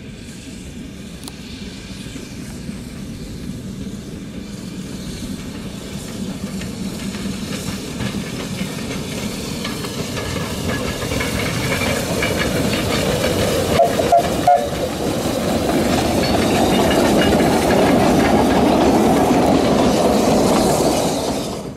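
Narrow-gauge steam locomotive and its wooden coaches running past, the steam exhaust hissing and the wheels clattering over the rail joints. The sound grows steadily louder as the train nears and passes, with a few short sharp sounds about two-thirds of the way in, then drops away abruptly at the very end.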